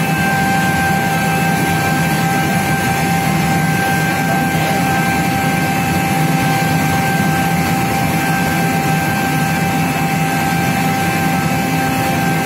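Fusheng SA37 rotary screw air compressor running steadily: an even, loud machine noise with a steady high-pitched whine on top.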